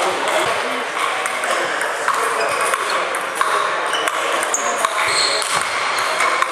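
Ping pong balls clicking off sandpaper bats and the table in irregular knocks, over a steady background of voices and hall noise.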